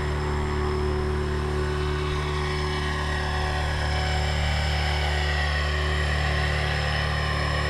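Battery-powered radio-controlled aircraft hovering during a tuning flight, its electric motors and propellers making a steady hum with a thin high whine that stays even throughout.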